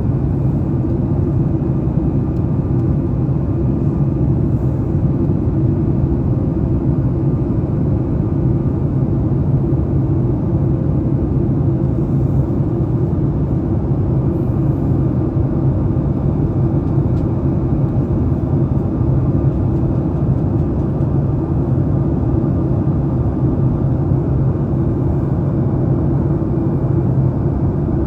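Steady cabin noise of a Boeing 737-8 MAX in its climb after takeoff: a constant low rumble from its CFM LEAP-1B engines and airflow, heard from inside the passenger cabin.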